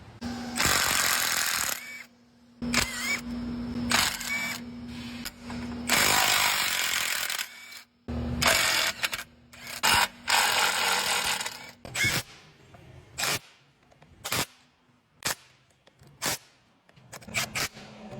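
3/8-inch cordless impact wrench hammering in repeated bursts of one to two seconds, then a string of short blips about once a second.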